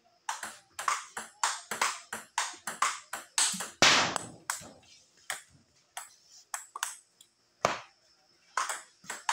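Table tennis ball clicking against the table and the rubber bats in a fast exchange, about four hits a second, with the hardest hit about four seconds in. After that the hits come slower and further apart.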